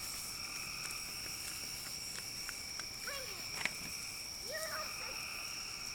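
A steady, high-pitched chorus of night insects, with a few sharp clicks and crackles (the loudest about three and a half seconds in) and faint voices in the background.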